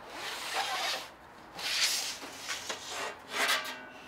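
A large sheet of metal slid out of an upright storage rack, scraping and rubbing against the rack and neighbouring stock in about four uneven bursts.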